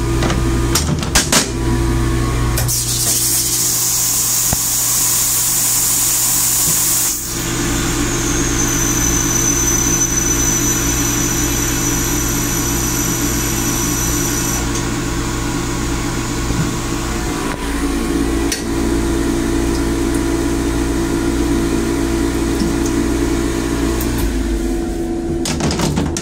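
Stainless-steel toilet in a Metro-North Comet IV rail car flushing: a loud rushing hiss for about four seconds, then a steady high whine for about six seconds. All of it sits over the car's constant low hum, with a few clacks of the toilet lid near the start and at the end.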